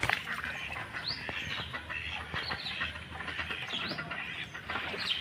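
Domestic ducks quacking in short harsh calls, with a few quick rising chirps from small birds.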